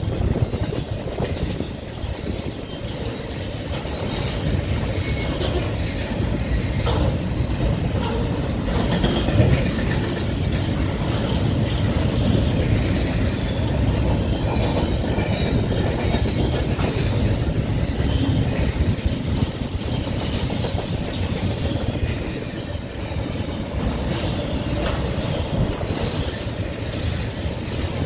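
Double-stack intermodal container train rolling past, its steel wheels on the rails making a steady rumble with occasional sharp clicks and clanks.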